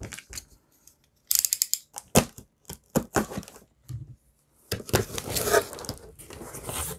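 Packing tape on a cardboard shipping box being slit and torn, in a series of sharp clicks, scrapes and a short ripping burst. Near the end the cardboard flaps are pulled open with a longer rustle.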